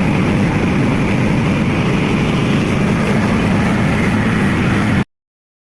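Mahindra 575 DI XP Plus tractor's diesel engine running steadily, heavy and low-pitched, until the sound cuts off abruptly about five seconds in.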